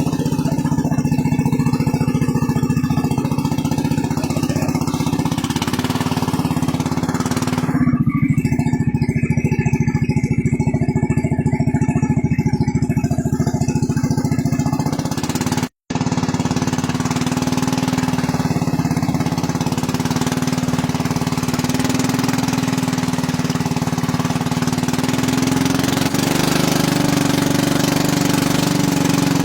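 Small boat engine running steadily at a constant speed with a strong, even hum, cut off for an instant about sixteen seconds in before carrying on.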